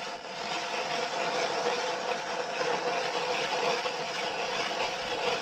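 Petrol motor ice auger running at a steady speed.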